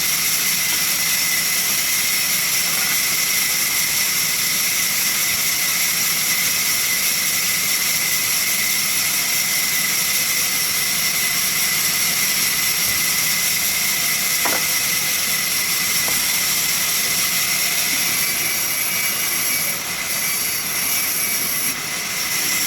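Sawmill machinery running steadily, a loud, even high-pitched hiss with a few constant tones in it.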